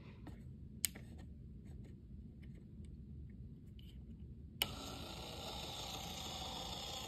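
A switch clicks sharply about four and a half seconds in, and a small DC gear motor starts at once and runs steadily, driving a conveyor belt. A single sharp click also comes just under a second in.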